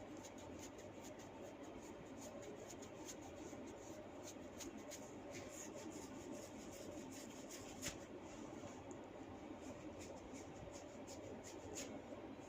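Hands working through long hair in a head massage: soft rustling with many small, irregular crackles and clicks of hair being rubbed and tugged, one click a little louder about eight seconds in.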